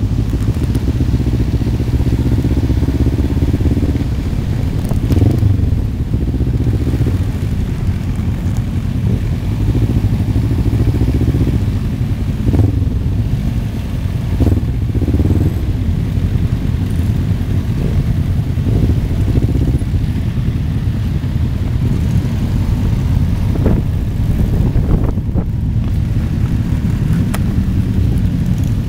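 Motorcycle engines running at low road speed in a group ride, heard close from a bike-mounted microphone, with the engine note rising and falling several times as riders work the throttle.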